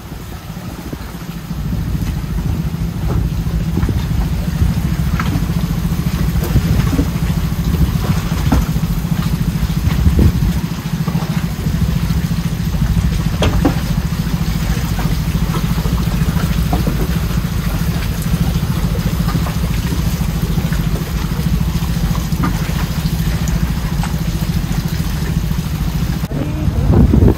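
A small boat's engine running steadily, stepping up in level about a second and a half in, with scattered knocks and clicks over it.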